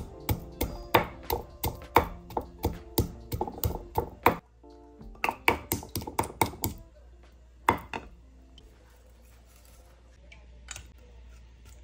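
Wooden pestle pounding garlic cloves in a wooden mortar (pilón): sharp wooden knocks about three a second for most of the first seven seconds, one more knock a little later, then it stops. Quiet background music runs underneath.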